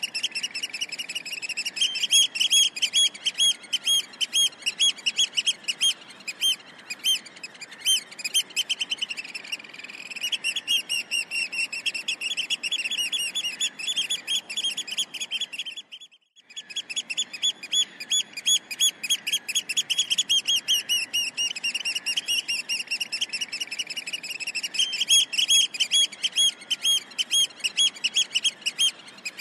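Bird calling in a rapid, continuous train of short high-pitched chirps, many a second, with a brief break about halfway through.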